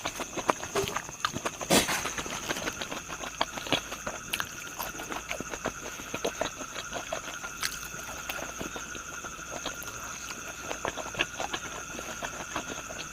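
Close-up chewing and mouth sounds of someone eating fried pork intestine, a dense run of irregular wet clicks and crunches.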